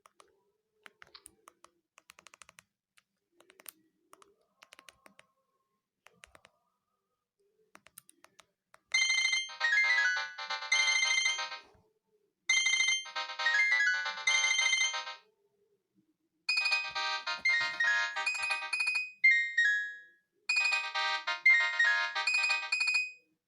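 The iTel it5615 feature phone's ringtone plays: a short, bright electronic melody, its phrase sounding twice. Then a different phrase sounds twice. Before the ringtone starts there are only a few faint clicks.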